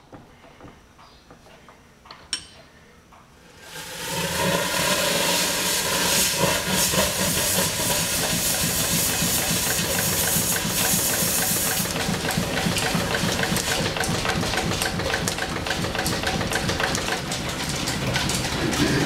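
Two light metallic clicks, then a little under four seconds in the stationary steam engine that powers the machine shop's line shaft starts up: a loud steam hiss with a steady rhythmic beat of the engine running underneath. The hiss eases partway through while the engine keeps running.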